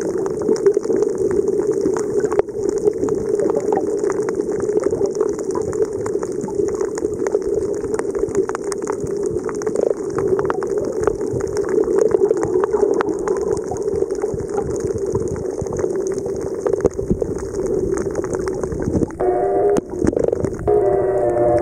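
Muffled underwater noise picked up by a submerged camera over a reef: a steady low wash of water with many small crackling clicks throughout. Near the end a steady pitched hum with several tones comes in.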